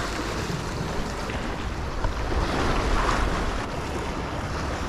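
Ocean surf washing on a beach, swelling about halfway through, with wind rumbling on the microphone.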